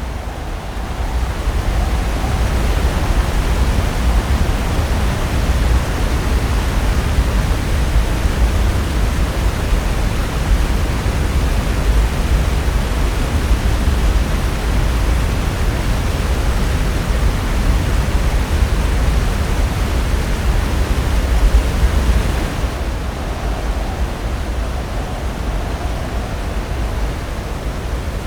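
Steady rush of Pacific Ocean surf, waves breaking and washing in, with a strong low rumble. About 23 seconds in it changes to a slightly quieter, duller rush.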